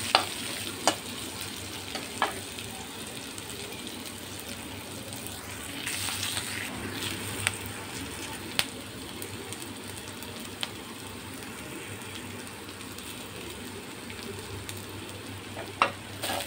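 Sliced onions, garlic, ginger and green chillies sizzling in hot oil in a frying pan as the onions fry down: a steady frying hiss with an odd pop. A spatula clicks against the pan a few times near the start and again near the end.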